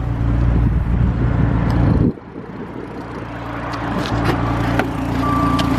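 Dodge Viper GTS's 8.4-litre V10 idling steadily. Its sound drops off suddenly about two seconds in, then builds back up. Near the end a steady warning chime starts, set off because the key has left the car.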